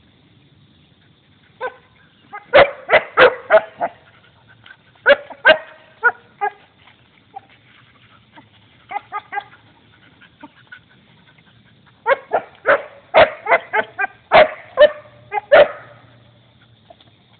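Belgian shepherd dog barking in bursts of several quick, sharp barks, with a softer, shorter run in between.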